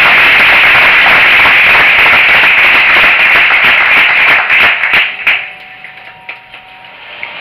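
Audience applauding loudly, dying away about five seconds in to a few scattered claps.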